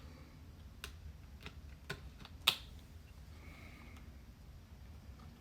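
A few scattered small clicks and taps from working the RAM retention clips and handling a memory module in a 2012 MacBook Pro's memory slots, with one sharper click about halfway through.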